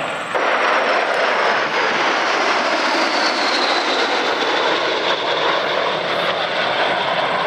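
L-39 Albatross jet trainers making a fly-by: a loud, steady jet rush that comes in abruptly about half a second in, with a high whine that falls slowly in pitch as they pass.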